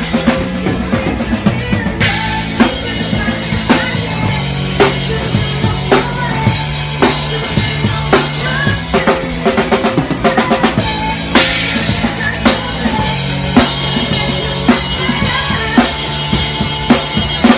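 A live band playing loud: a drum kit beat with frequent hits, over held bass notes that change every second or two, with electric guitar.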